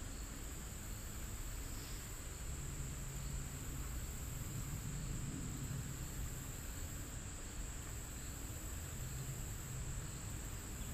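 Steady, unbroken high-pitched chorus of insects, with a low rumble underneath.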